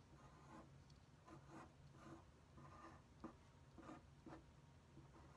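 Faint pencil scratching on paper in short, quick sketching strokes, roughly two a second.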